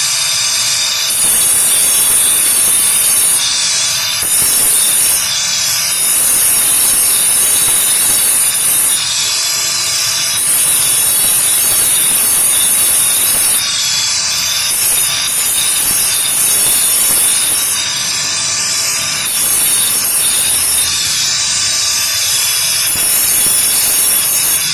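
Emery grinding stone of a flour mill being dressed (takai): a continuous grinding, scraping noise, with a high hiss that cuts in and out every second or two.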